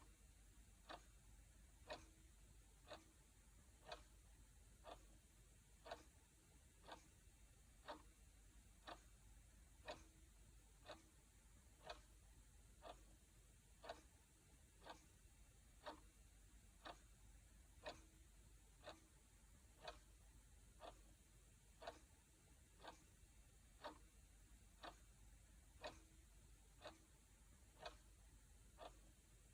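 Clock ticking steadily at one tick a second, the ticks alternating slightly stronger and weaker in a tick-tock pattern.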